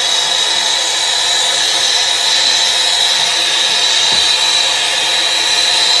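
Acetylene torch flame hissing steadily, with a high steady tone over the hiss, as it heats a copper refrigerant line to unbraze it from an old heat pump compressor.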